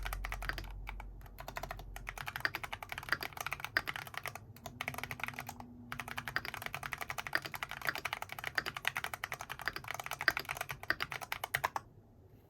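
Fast typing on an FL·ESPORTS GP108 mechanical keyboard fitted with Feker Holy Panda tactile switches: a dense run of key clicks with a few brief pauses, stopping just before the end.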